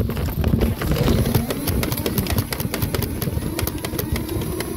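Wind buffeting and handling noise on a fast-moving camera's microphone, with many sharp irregular clicks and knocks throughout.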